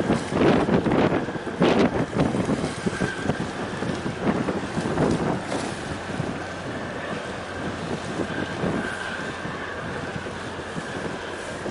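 Wind buffeting the microphone in heavy gusts for the first few seconds, then settling to a steadier rush of wind and water, with a faint high steady hum under it.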